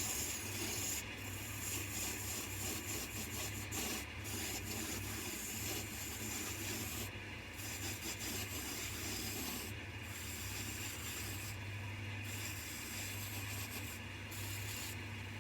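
Coronet 1 wood lathe running with a steady motor hum while a roughing gouge cuts the spinning wood blank, a continuous scraping hiss that eases off briefly several times as the tool is moved along.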